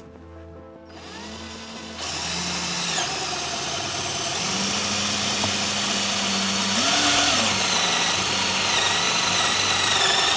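Power drill with a step drill bit boring a 28 mm hole for a 12V socket, starting about a second in and getting louder about two seconds in, its motor pitch rising and falling as the bit cuts.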